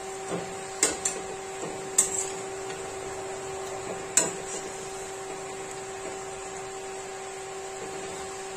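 Gulgule fritters sizzling as they deep-fry in oil in a kadai, with a slotted metal spatula clinking against the pan about four times in the first half. A steady hum runs underneath.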